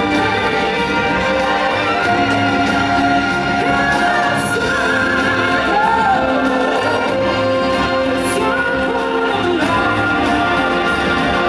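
Live show music: voices singing long held notes over a full orchestral backing.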